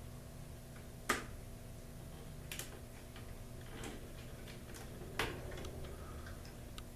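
A few sharp, short plastic clicks and taps as wires are released from the push-in terminals of a garage door opener logic board, the two loudest about a second in and about five seconds in, over a steady low hum.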